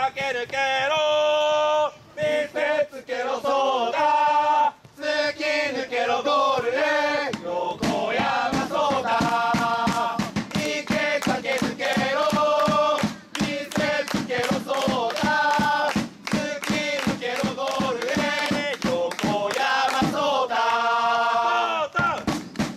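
Group of football supporters singing a player's chant in unison, with a steady beat joining the singing about eight seconds in.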